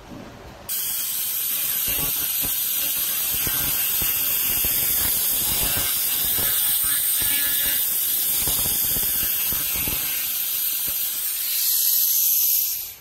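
300 W pulsed laser cleaner ablating grime and rust off a steel wheel rim: a steady, loud, high-pitched crackling hiss with a thin high whine over it. It starts suddenly about a second in and cuts off suddenly at the end.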